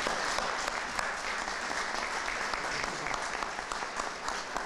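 Audience applauding: many hands clapping together at a steady level.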